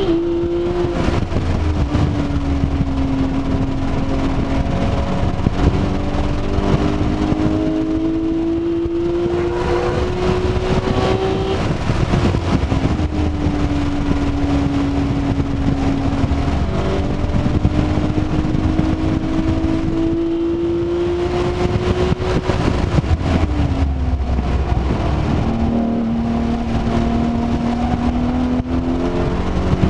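A Porsche 911 GT3's naturally aspirated flat-six engine, heard from inside the cabin, running hard in fourth gear on track. Its note climbs under acceleration and falls away several times as the car slows for corners, with a long climb in the first half and another low, falling stretch near the end.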